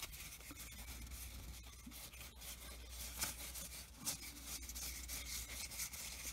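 Baseball trading cards being slid and fanned apart by hand: faint rubbing of card stock on card stock, with soft scattered ticks of card edges.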